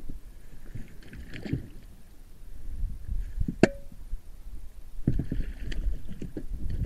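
Knocks and bumps of handling in an inflatable boat while a small pike splashes at the surface beside it, with short bursts of splashing and one sharp click a little past halfway.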